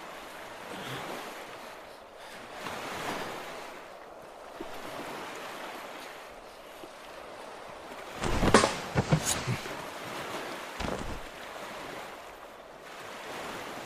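Steady rushing wind-like ambience with a short cluster of knocks and thumps a little past halfway, the loudest sounds here, then a few fainter knocks.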